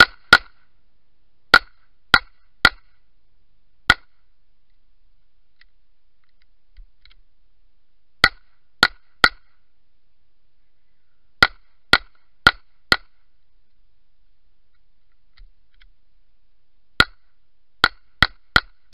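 Semi-automatic handgun fired in quick strings, about eighteen shots in all, in groups of roughly six, three, four and five. Within each group the shots come about half a second apart, with pauses of a few seconds between groups.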